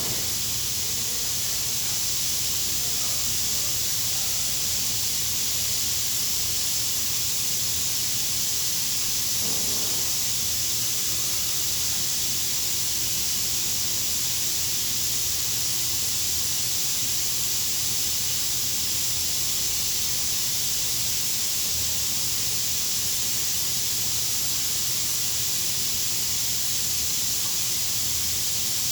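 A steady high-pitched hiss that does not change, with a faint low hum beneath it.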